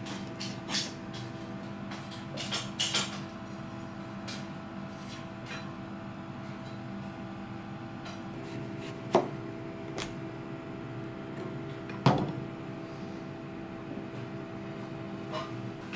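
Kitchen knife slicing through cooked fish liver on a plastic cutting board: a quick run of light clicks in the first few seconds. Past the middle come two sharp knocks about three seconds apart, as of ceramic dishes set down on a table, over a steady background hum.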